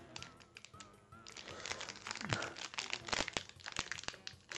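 Foil booster-pack wrapper crinkling and crackling in irregular bursts as fingers pick and pry at its glued seam to peel it open.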